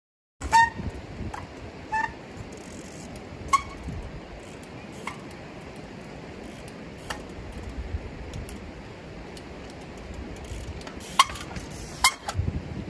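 Trials bike being ridden over rocks: a series of sharp knocks, each with a short metallic ring, spaced irregularly with two close together near the end, over steady outdoor background noise.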